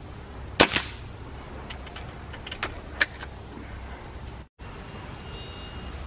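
Beeman R9 spring-piston air rifle firing a pellet at a multitool on a wooden board: a sharp crack about half a second in, quickly followed by a second snap. A few lighter clicks come next, then another sharp snap about three seconds in.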